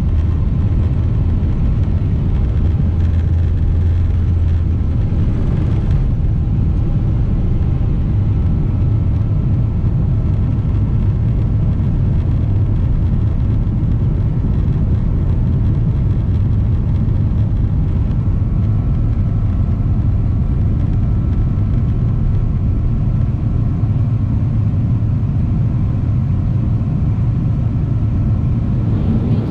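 Boeing 777-300ER's GE90 jet engines at takeoff power, heard from inside the cabin as a loud, steady rumble. The deepest rumble eases about five seconds in as the jet leaves the runway, and the engines and airflow run on steadily through the climb.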